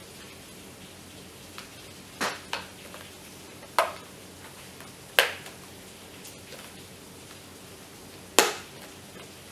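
Sharp plastic clicks and knocks as the plastic body of an Orpat OEK-8127 electric kettle is handled and worked with a screwdriver. There are five clicks, a close pair about two seconds in, then single ones; the loudest are about five and eight seconds in.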